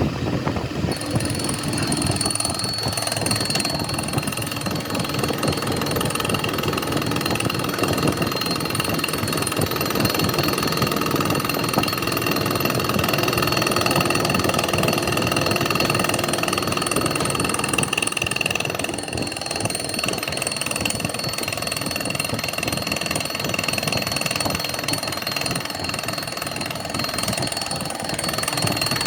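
Metalworking machinery running steadily, a fast continuous rattle with a steady high whine over it, starting abruptly.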